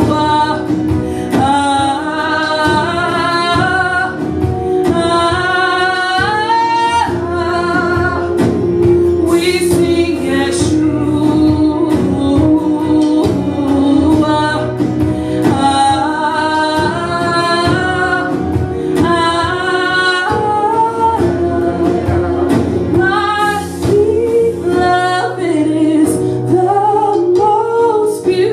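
A woman singing a gospel worship song into a handheld microphone, her melody lines held and sliding, over sustained instrumental backing.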